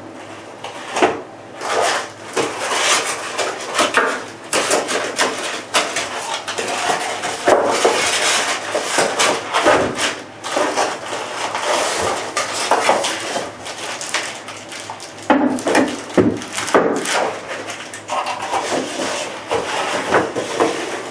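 Unboxing handling noise: a long cardboard box and the clear plastic bag around an air rifle rustling, crinkling and knocking in irregular bursts as the rifle is lifted out.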